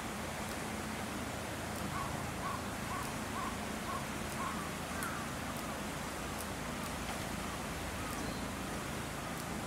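Outdoor ambience with a low steady rumble. From about two seconds in comes a run of short, high chirping calls, about two a second.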